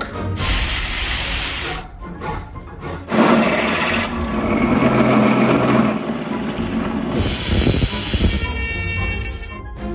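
Workshop tool noise working wood in two bursts, a short one near the start and a longer, louder one from about three seconds in, with music faintly underneath.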